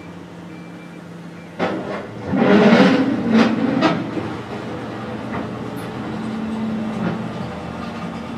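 Excavator's diesel engine running with a steady low hum, broken by a sharp knock about a second and a half in and then a few seconds of loud scraping and crashing with clanks, as the bucket tears up road surface; the engine hum carries on after.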